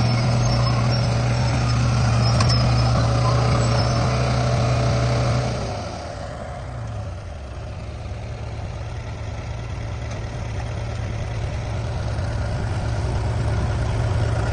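Heavy construction machine's diesel engine running steadily with a deep hum, easing off about five and a half seconds in and then slowly building again.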